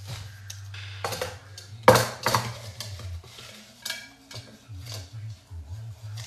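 A few sharp clicks and clatters of hard objects being handled, the loudest about two seconds in, over a steady low hum.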